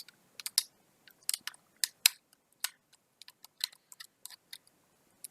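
Irregular sharp clicks and ticks of a small screwdriver and tiny screws as the screws come off a laptop hard drive's mounting bracket.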